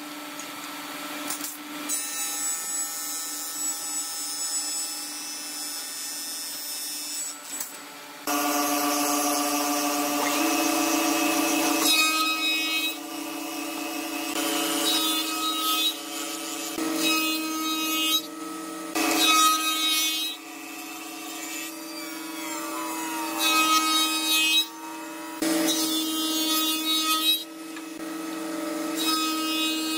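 Spindle moulder (wood shaper) running with a steady hum and cutting wood in repeated passes. Each pass brings a louder stretch of cutting noise lasting a second or two.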